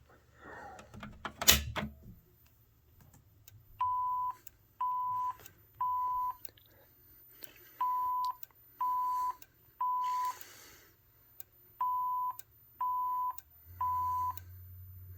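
A fire alarm pull station snaps as it is pulled, then an FCI voice evacuation system sounds its alert tone: steady single-pitch beeps in the temporal-three pattern, three beeps then a pause, repeated three times, the evacuation signal that comes before the spoken message.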